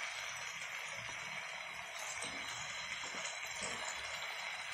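Steady soft sizzling of green masala cooking in a pan, with prawns and potato pieces resting in it.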